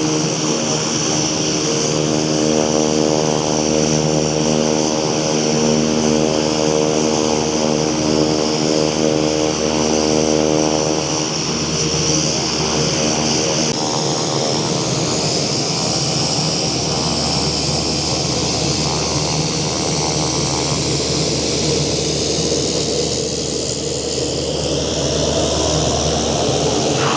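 Rolls-Royce turboprop engine of a Cessna 210 Silver Eagle conversion running: a steady propeller drone with a high turbine whine over it. The sound shifts about halfway through and changes again near the end.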